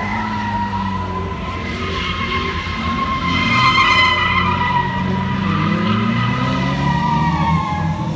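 Car tyres squealing steadily as a muscle car spins them on pavement, with the engine running and revving underneath; the squeal swells loudest about halfway through.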